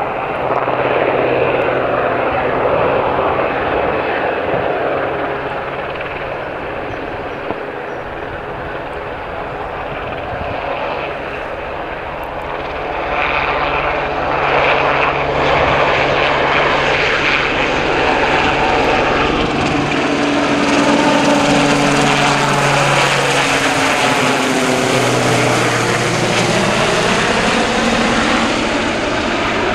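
RAF Westland Sea King search-and-rescue helicopter flying low: loud, steady rotor beat and the whine of its twin Rolls-Royce Gnome turboshaft engines. In the second half the sound sweeps in pitch as the helicopter moves about.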